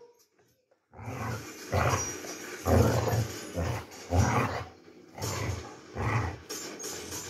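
Basset hound play-growling: a run of about six short, rough growls, roughly one a second, starting about a second in.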